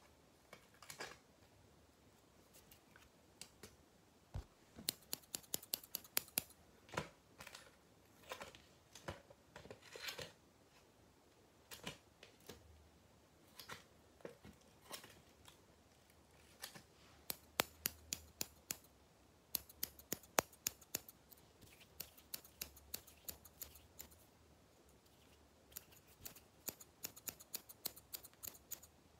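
Hair-cutting scissors snipping close to the microphone in quick runs of crisp, clicking snips, with short pauses between the runs.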